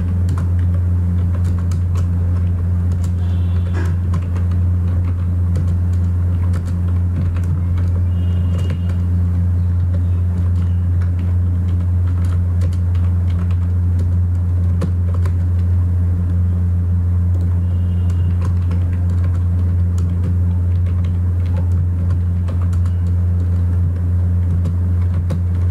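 A loud, steady low hum with scattered clicks of computer keyboard keys being typed.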